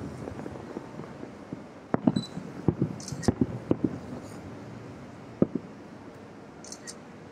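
Aerial fireworks shells bursting about two miles off, heard as a scatter of dull booms: a cluster from about two seconds in, and one more about five and a half seconds in.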